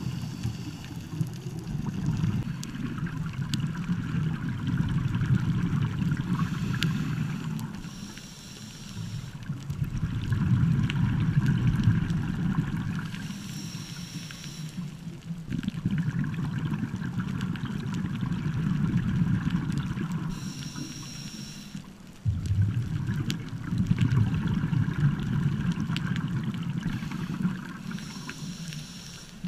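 Scuba diver breathing through a regulator, heard underwater through the camera housing: long stretches of exhaled bubbles gurgling low, each followed by a short hiss of inhalation. The cycle repeats about every six to seven seconds, four breaths in all.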